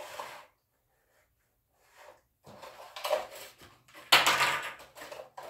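Clear plastic blister tray of die-cast toy cars being handled and lifted off a table: irregular bursts of plastic crinkling and knocking, the loudest a sudden one about four seconds in, after a quiet second or two.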